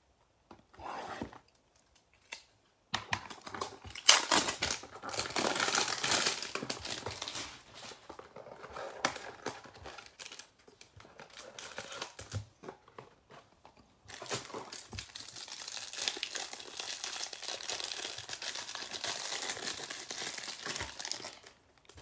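Plastic wrapping crinkling and tearing as a sealed stack of Topps baseball cards is pulled from its cardboard hanger box and unwrapped. It starts with a few brief crackles, runs on densely for several seconds, pauses briefly past the middle, then crinkles steadily again until near the end.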